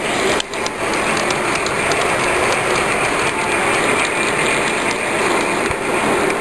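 G-scale model train running on its track, heard from a camera riding on one of its cars: a steady mechanical rolling rattle of wheels and gearing, with a few sharp clicks in the first second.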